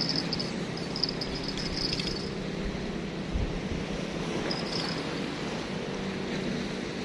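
A steady low engine hum, with bursts of high-pitched chirping in the first two seconds and again briefly about five seconds in.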